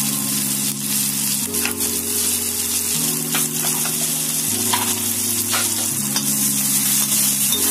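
Chopped onion and green chillies sizzling in hot oil in a pan, with a few light clicks as they are stirred.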